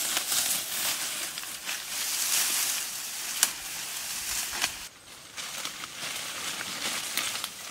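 Dry grass and dead leaves rustling and crunching as someone pushes through them on foot, with sharp snaps of dry stems, one louder snap about halfway through and a brief lull soon after.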